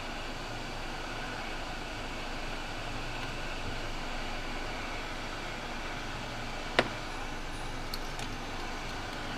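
Steady mechanical rushing noise with a low hum, broken by one sharp click about seven seconds in and a couple of faint ticks just after.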